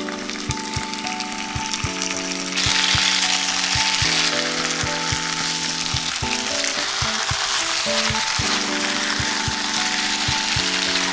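Marinated duck pieces sizzling as they stir-fry in hot oil with lemongrass, turned with chopsticks; the sizzle gets louder about two and a half seconds in. Background music with a steady beat plays under it.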